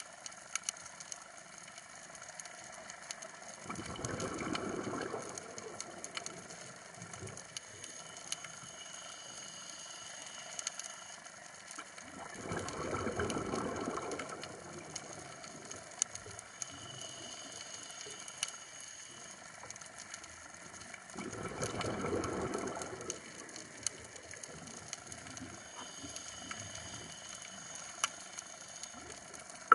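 Scuba regulator exhaust: three bursts of exhaled bubbles, each about two seconds long and about nine seconds apart, over the constant faint crackling and ticking of a coral reef.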